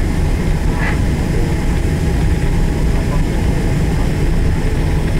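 Steady loud low rumble heard inside a Boeing airliner's cabin as it touches down and rolls out on the runway, with the wing spoilers raised.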